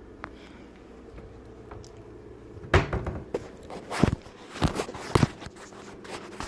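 About six loud thumps and knocks in quick, uneven succession, starting a little under halfway through and ending about two-thirds of the way in.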